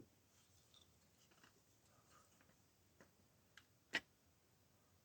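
Near silence: room tone with a few faint, short clicks, the sharpest about four seconds in.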